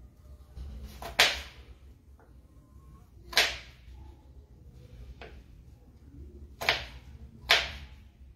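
Kitchen knife knocking down onto a plastic cutting board while slicing potato, about five sharp chops spaced irregularly one to two seconds apart. A low steady hum runs underneath.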